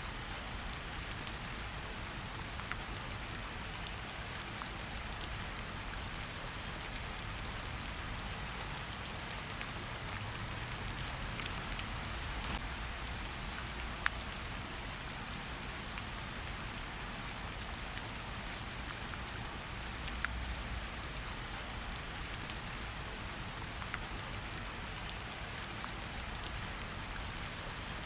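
Steady rain falling on a surface: an even hiss with scattered sharp drop ticks, over a faint low rumble that swells slightly twice.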